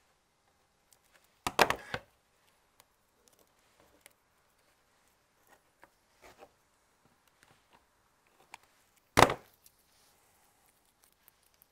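Two short clusters of loud knocks and handling noise on a chipboard workbench as a black Perspex plaque is handled, about a second and a half in and again about nine seconds in, with faint scattered taps and rustles between.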